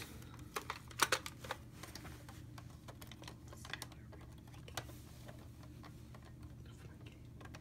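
Hard plastic clicks and rattles of a toy Nerf blaster being handled, several in quick succession in the first second and a half, then a few sparse ones, over a low steady hum.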